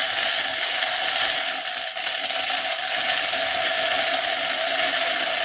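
Grain being poured and landing in a steady stream, a continuous dense patter of many small grains.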